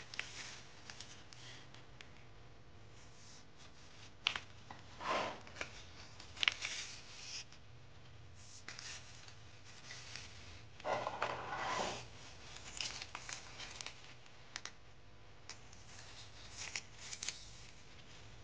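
Hands peeling and pressing adhesive foam anti-vibration pads onto wooden bed-frame slats: scattered small clicks and short rustling, tearing bursts, the longest about five seconds in and again around eleven seconds in.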